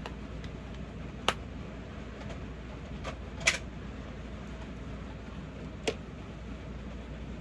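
Makeup containers being handled: four sharp clicks or taps, the loudest about three and a half seconds in, over a steady background hiss.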